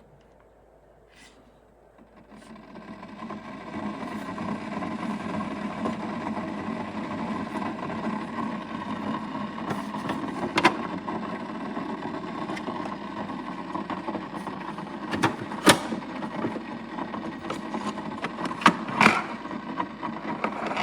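Keurig K-Elite single-serve coffee maker brewing: its pump starts about two seconds in and runs steadily. Several sharp clicks sound over it in the second half.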